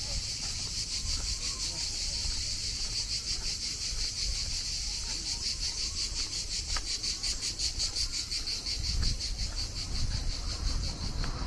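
Insects chirping in a loud, steady high-pitched chorus that pulses a few times a second, over a low outdoor rumble.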